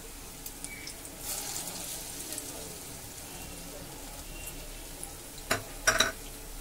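Battered ivy gourd leaf fritters deep-frying in hot oil in a wok, a steady sizzle. A few sharp clicks near the end.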